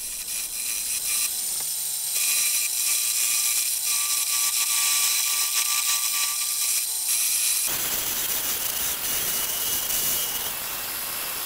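Wood lathe spinning a wooden spindle while a hand-held turning tool cuts it: a steady, high hissing scrape with a faint whine under it, turning coarser about two-thirds of the way through.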